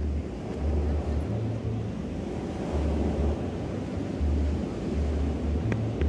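Small ocean waves washing onto a sand beach, a steady surf hiss, with gusts of wind rumbling on the microphone every second or so.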